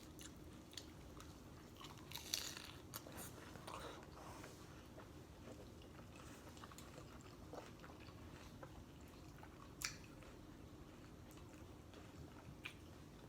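Faint, close-up chewing and crunching of nacho tortilla chips, with scattered crisp crunches, a cluster of them a couple of seconds in and one sharper crack near the end.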